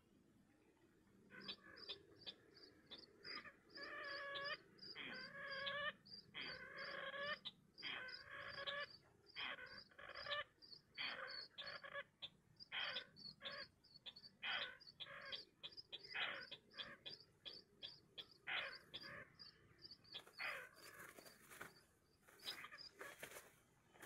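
White-breasted waterhen calling: a fast, unbroken run of harsh repeated calls that starts about a second in, with a quick regular ticking over it.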